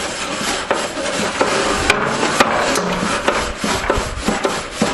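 Wire brush scrubbing a barbecue grill: a steady scraping with many short sharp clicks through it.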